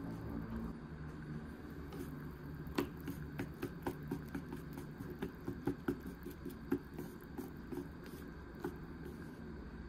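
Chopsticks stirring miso soup in a bowl to dissolve the miso paste, with light irregular clicks against the bowl a few times a second from about three seconds in.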